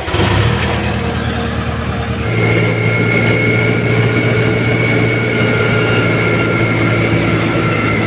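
Tractor diesel engine starting on the key and settling to a steady run. About two seconds in, the sound changes to a tractor being driven, its engine running steadily with a high whine over it.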